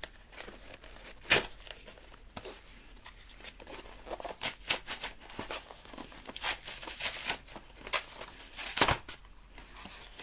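Packaging being torn open and crinkled by hand: irregular crackling and snapping, with two sharp louder rips about a second in and near the end.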